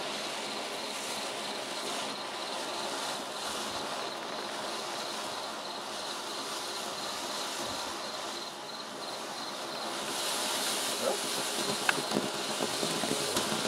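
Ground fountain firework hissing steadily as it sprays sparks. The hiss grows louder and brighter about ten seconds in as the fountain builds, with a few crackles near the end.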